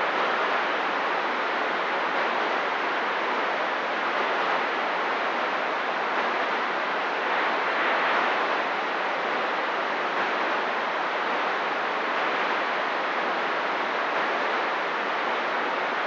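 Steady hiss of CB radio static with the receiver's squelch open, no station transmitting.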